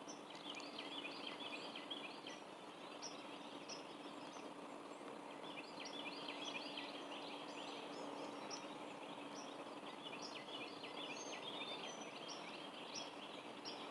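Faint background of small birds chirping and trilling in short repeated phrases, over a steady low hum and a light hiss.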